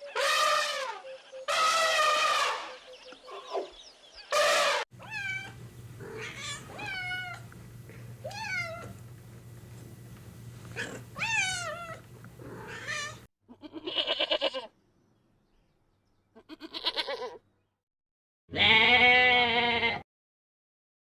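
A string of separate animal calls: first several drawn-out, gliding, meow-like cries, then, after short silences, three wavering bleats, the last one the loudest.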